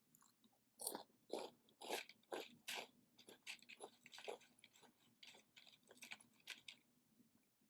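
A person chewing crunchy food close to the microphone, a run of loud crunches about two a second that turns to lighter chewing and stops near the end.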